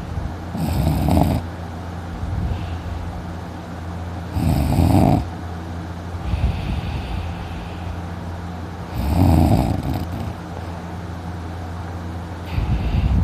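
A man snoring loudly in his sleep, one rough snore about every four seconds, over a steady low hum.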